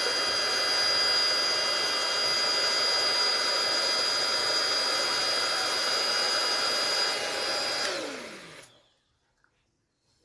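Small electric balloon pump running steadily with a whine, filling a latex balloon. About eight seconds in it is switched off, and its whine falls in pitch and fades out as the motor spins down.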